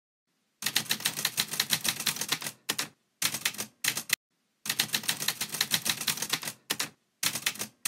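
Manual typewriter being typed on: quick runs of sharp key strikes, about ten a second, broken by short pauses between words.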